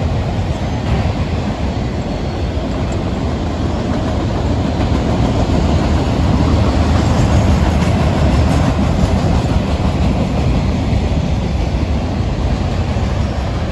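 Freight train rolling past: a steady, loud rumble of wheels on the rails, with no horn sounding.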